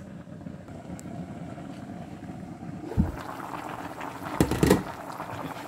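A pot of chicken soup simmering under a glass lid, the bubbling heard as a steady low hiss. About three seconds in the lid knocks once as it comes off, the simmering grows fuller, and the lid clatters briefly a second or so later.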